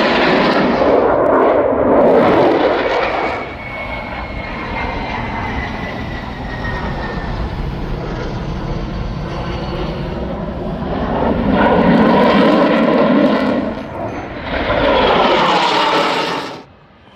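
Aircraft flying past: loud engine noise that swells twice, with a thin whine slowly falling in pitch between the peaks. It cuts off abruptly near the end.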